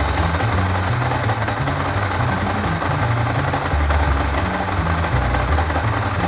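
Ducati Monster 1100S's air-cooled L-twin engine idling with an uneven, lumpy low beat.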